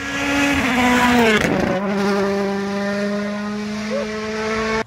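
Rally car engine at high revs. Its note drops sharply about a second and a half in, then holds steady, and the sound cuts off abruptly near the end.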